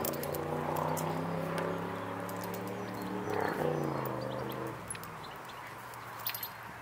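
Siberian husky puppy growling through a tug toy held in its mouth: a play growl during tug-of-war. One long, low growl that wavers briefly about three and a half seconds in and stops a little before five seconds, followed by a few faint clicks.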